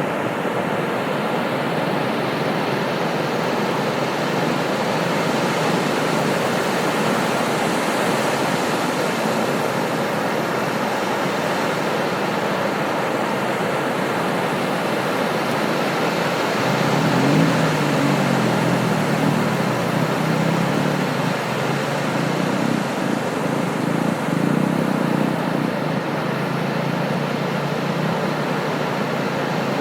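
Ocean surf breaking and washing on a beach, a steady rushing noise. About halfway through, a deeper rumble swells for several seconds and then fades back into the wash.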